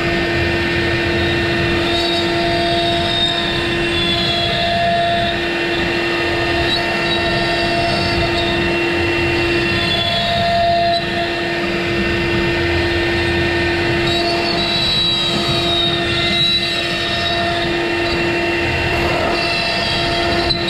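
Avid CNC router's spindle running steadily while its bit cuts circles into a wooden board, routing out the bottle-holder openings pass by pass. A steady whine sits over the cutting noise, with fainter high tones rising and falling as the machine moves.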